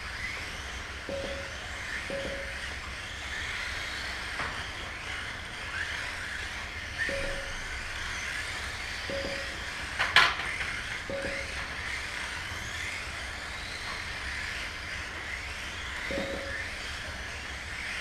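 Mini-Z electric RC cars whining as they race around the track, with short single beeps from the lap-counting system every few seconds. A sharp knock about ten seconds in, likely a car striking a barrier.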